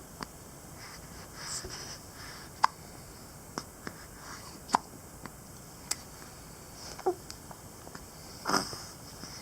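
Repeated hiccups: short, sharp hiccup sounds at irregular intervals of one to two seconds, the longest and loudest one near the end.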